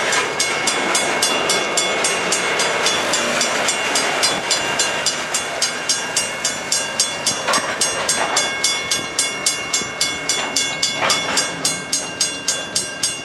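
Grade-crossing warning bell ringing in steady strokes, about three to four a second, over the rumble of freight hopper cars rolling slowly through the crossing. A few louder knocks come from the cars partway through.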